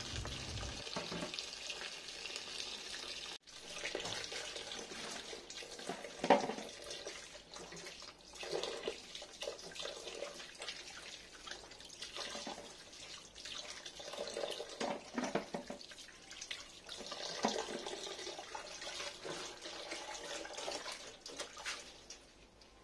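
Tap water running into a stainless steel kitchen sink as vegetables are rinsed by hand, with irregular splashes and rustling as leaves and green onions are swished and lifted into a plastic colander.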